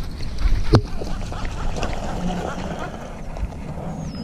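A hooked largemouth bass splashing and thrashing at the pond surface as it is reeled in on a baitcasting rod and swung out of the water, over wind rumble on a chest-mounted microphone. A single sharp knock of handling about a second in.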